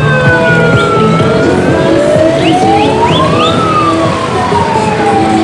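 Police siren wailing, its pitch sliding slowly down, then up to a peak about three and a half seconds in, then down again.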